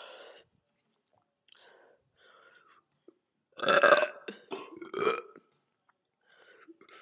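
A woman burping loudly twice, the two burps about a second apart a little past the middle.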